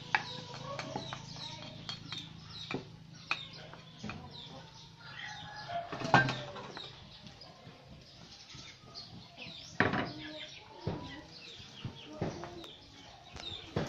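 Scattered knocks and scrapes of a wooden pestle and a metal spoon in a clay mortar as green papaya salad is pounded and mixed, the loudest knock about six seconds in. Small birds chirp over and over, and chickens cluck.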